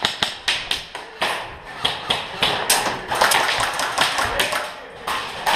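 Airsoft guns firing in close quarters: a run of sharp, irregular cracks and taps, about two or three a second, some of them BBs smacking into plywood walls.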